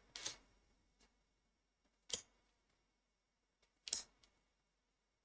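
Tarot cards being drawn from the deck and laid down on the spread: three sharp card snaps, one at the start followed by a brief slide, another about two seconds in and a third about four seconds in.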